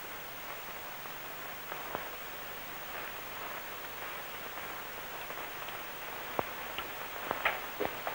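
Steady hiss of an old film soundtrack, with a few faint, short knocks about two seconds in and again near the end.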